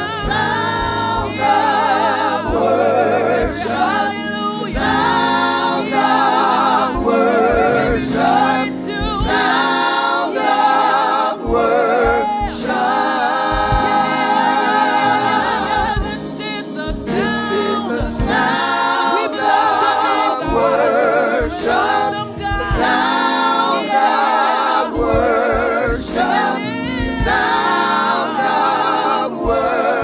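Gospel vocal group singing together through microphones, several voices wavering and sliding in long held notes and runs.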